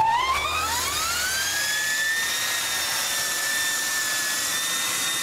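Electric racing motorcycle's high motor whine, rising in pitch over the first two seconds or so as the bike accelerates, then holding steady.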